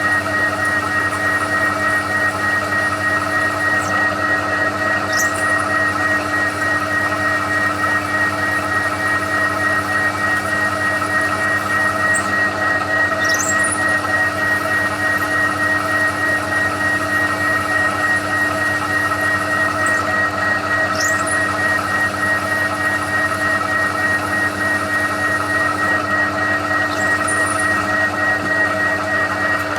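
A TOS milling machine runs steadily under power with a constant whine, plausibly making a light flycutting pass over the face of a warped exhaust manifold. A few faint high chirps sound at intervals of about eight seconds.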